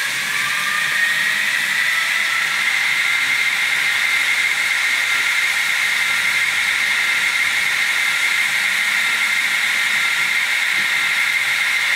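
Electric-locomotive air compressor sound played by the DCC sound decoder in a Fleischmann N gauge BR110 model. It runs as a steady hiss with a high whine that rises in pitch over the first second or so and then holds steady.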